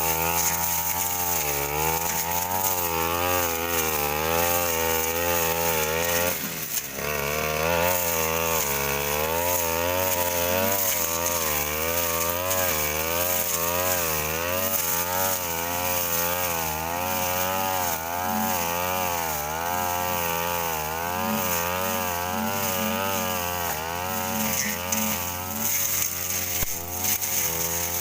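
Stihl two-stroke brush cutter running at high revs, its pitch rising and falling over and over as the blade swings through thick brush around an oil palm trunk. The engine dips briefly about six and a half seconds in, then picks up again.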